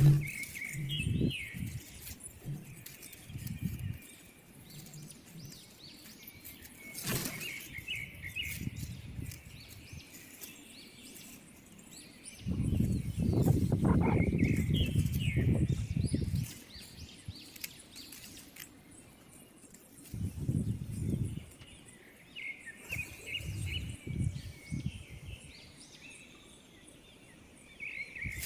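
High bird chirps in short clusters every few seconds, over separate bursts of low rumbling noise, the longest a few seconds long near the middle.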